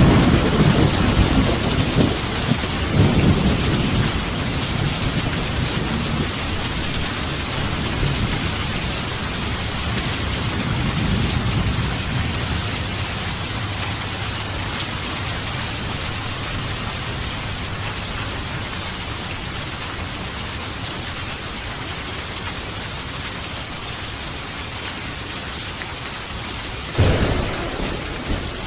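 Steady heavy rain with thunder: a rolling low rumble at the start that fades over the first dozen seconds, then a sharper thunderclap near the end.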